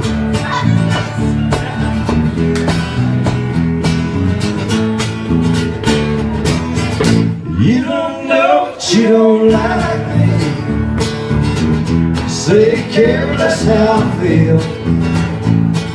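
Live country music, an instrumental break: acoustic guitar strummed and picked over a walking electric bass line, with a few sliding notes about halfway through.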